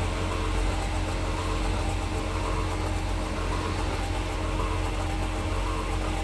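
Bilge oily water separator's electric pump motors running under test, a steady, unchanging mechanical hum.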